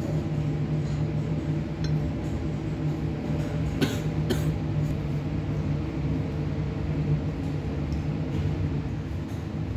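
Two light glass clinks about four seconds in, half a second apart, as a glass lid is set on a glass beaker. A steady low hum runs underneath.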